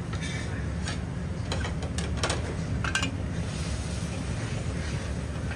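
A metal ladle clinking and scraping against an iron wok while stir-frying noodles, with a few sharp strikes in the first three seconds, over a steady low rumble.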